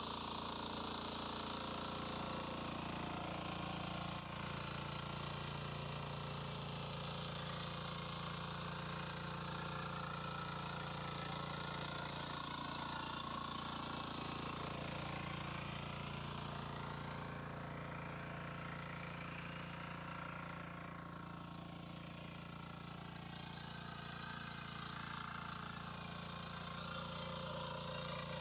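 Single-cylinder engine of a walk-behind power weeder running steadily under load as its rotary tines and ridger work the soil, easing off slightly about two-thirds of the way through.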